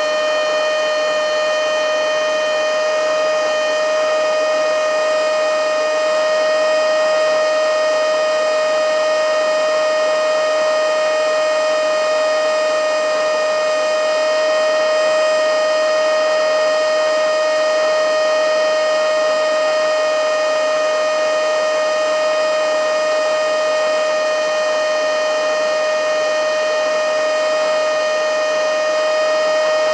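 Handheld blow-and-suck mini vacuum cleaner (XCQ-5588) running steadily on battery, a loud high-pitched motor whine over an airflow rush, holding one pitch throughout.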